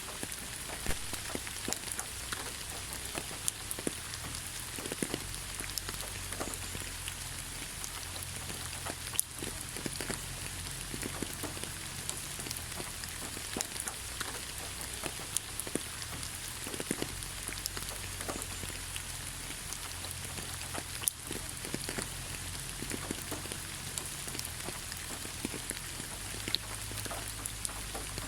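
Steady rain falling on leaves: a continuous hiss with many separate drops ticking and pattering, over a low rumble.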